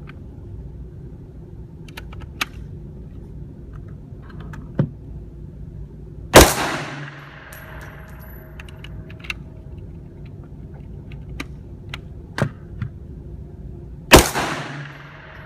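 Two close gunshots about eight seconds apart, each followed by a long fading echo. Fainter sharp pops and clicks fall in between.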